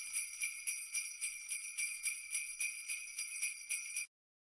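Jingle bells shaken in a steady rhythm, about four shakes a second, cutting off abruptly near the end.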